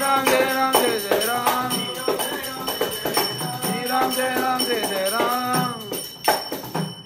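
Male voices singing a bhajan chant, with small brass hand cymbals struck in time and ringing high and bright. The singing ends about six seconds in, leaving a few last cymbal strikes.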